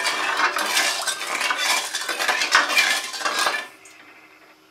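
Steel ladle stirring and scraping around an aluminium kadai of sugar and water, a quick run of metal-on-metal clinks, stirring to dissolve the sugar. The stirring stops shortly before the end.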